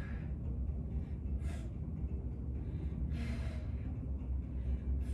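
A woman breathing hard from the effort of single-leg glute bridges, with a few short, sharp exhales about a second and a half to two seconds apart, over a steady low hum.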